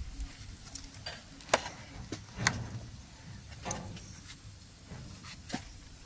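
Scattered sharp clicks and taps, about five of them, from a kitchen knife and vegetables being handled while a tomato is cut in the hand.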